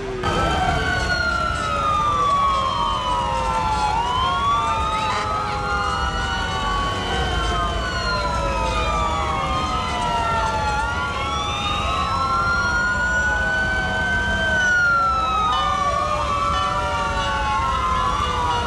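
Several fire engine sirens wailing at once, their rising and falling pitches overlapping one another, over the low rumble of the trucks' engines as the convoy passes.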